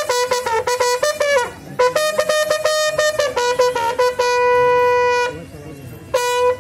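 A bugle call sounded as part of a funeral salute: phrases of quick notes stepping between two pitches, with one long held note about four seconds in. The call breaks off briefly twice.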